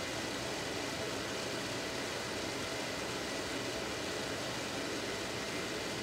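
Microwave oven running: a steady, even hum with no change in level.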